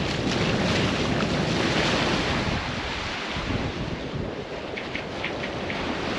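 Wind buffeting the microphone over the rush of water along the hull of a sailing catamaran under way at about 7 knots, easing a little about halfway through.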